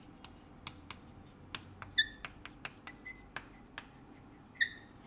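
Chalk writing on a blackboard: a run of quick taps and scratches as letters are formed, with brief high chalk squeaks about two seconds in, around three seconds, and a louder one near the end.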